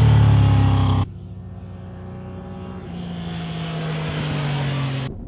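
Triumph Daytona 675's inline three-cylinder engine running hard as the sportbike passes at speed, loud for about a second and then cut off abruptly. A quieter engine note follows, holding steady and building in level as the bike approaches again.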